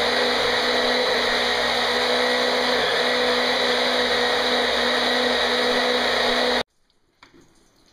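A steady electric motor running at full speed with a constant hum, then switched off abruptly about six and a half seconds in.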